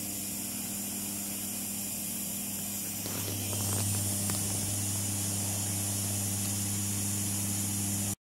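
50-watt CO2 laser cutter at work: a steady hiss of air from the dual air assist at the laser head over a steady electrical hum of its fans and pumps. The hum grows louder about three seconds in.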